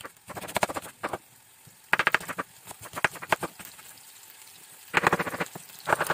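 Chef's knife chopping an onion on a bamboo cutting board: rapid knocks of the blade through the onion onto the wood, in several quick runs with short pauses between.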